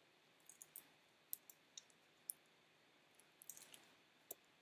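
Near silence with about a dozen faint, short clicks and ticks scattered irregularly, a small cluster about half a second in and another around three and a half seconds in.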